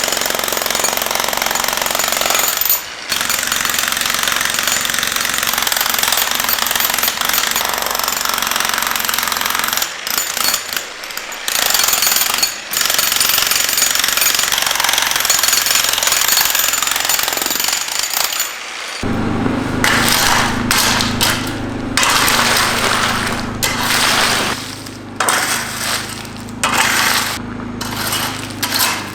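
A 35-pound demolition hammer chiselling concrete, running in long stretches with a few brief stops. From about two-thirds of the way in it comes in shorter bursts over a steady low hum.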